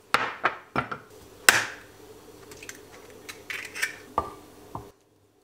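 Kitchen bowl and utensils knocking and clinking: four sharp knocks in the first second and a half, then lighter clatter, cutting off suddenly about five seconds in.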